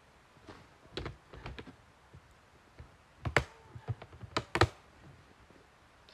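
Camping gear being handled and packed by hand: a run of sharp knocks and clicks of hard objects, the loudest about three and a half and four and a half seconds in.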